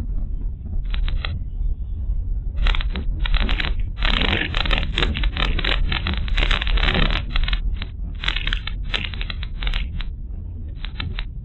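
Car driving on a rough road, heard from the dashcam inside: a steady low rumble of tyres and engine, with irregular runs of crackling and scraping rattle over it.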